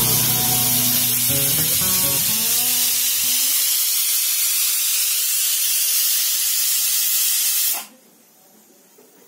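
Pressure cooker steadily hissing as steam jets from under its weight valve, the sign that the cooker is up to pressure. The hiss stops abruptly near the end. Background music fades out in the first few seconds.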